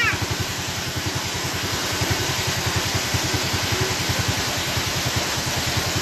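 Small waterfall pouring onto rock, a steady rushing splash, with a small engine idling nearby in a regular low putter of about ten beats a second.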